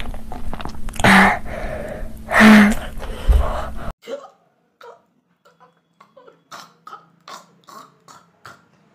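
A person eating on camera makes two loud, short throat noises about a second and a half apart, close to burps. After about four seconds come a series of short, faint clicks.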